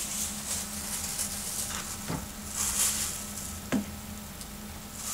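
Thin plastic bag crinkling and rustling in bursts as it is pulled down over a plastic seedling cup, with two light knocks in the middle.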